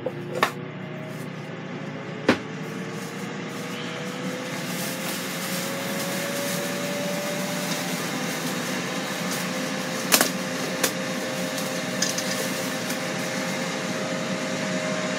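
Ninja Foodi XL grill running in air-fry mode, its fan giving a steady whir with a hum that rises in pitch over the first several seconds and then holds steady. A few sharp clicks and knocks come through, two near the start and two about two-thirds of the way in.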